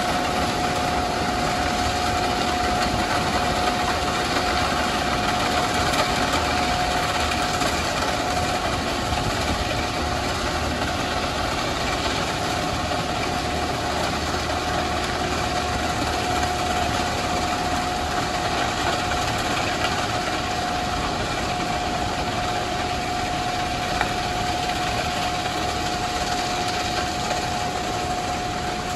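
Ballast regulator at work on the track: its diesel engine running steadily under a constant rushing noise, with a steady whine held throughout. It fades slightly as the machine moves away.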